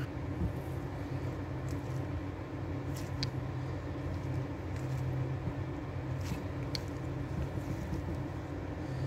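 A steady low hum, with a handful of faint, sharp clicks as small plastic-insulated spade terminals are handled and squeezed.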